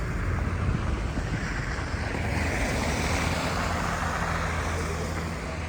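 Road traffic: a vehicle passes, its tyre noise swelling and fading around the middle, over a steady low engine rumble.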